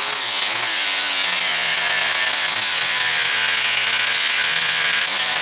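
Electric angle grinder grinding down the welded top of a steel leaf-spring pad clamped in a vise. It runs steadily under load, its pitch wavering slightly as the disc bears on the metal.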